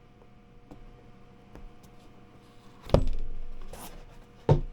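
A stiff cardboard box lid being worked off by hand. A few faint clicks, then about three seconds in a sudden loud scrape and thud that fades over about a second, and a second short knock near the end.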